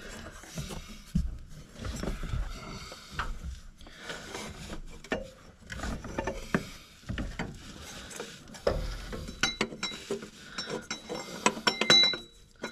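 Irregular clicks, knocks and light metal clinks of steel exhaust pipe and bends being handled and fitted, with a few ringing metallic clinks near the end.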